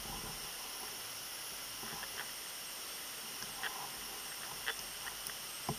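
Steady hiss of the recording's background noise, with a scattering of faint small clicks and taps from fingers and a fine pointed tool prying a wristwatch dial off its movement.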